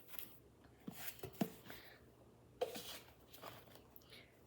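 Soft rustles and light taps of a hardcover book being handled and turned in the hands, with a few sharper clicks about a second and a half in and again near the middle.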